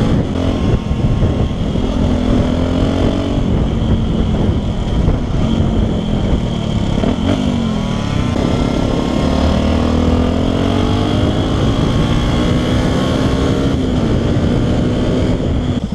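Yamaha WR125X's single-cylinder 125 cc four-stroke engine, fitted with an aftermarket LeoVince LV One exhaust, heard on the move. The engine pitch climbs under acceleration and drops back sharply several times as it shifts up through the gears, over steady wind rush.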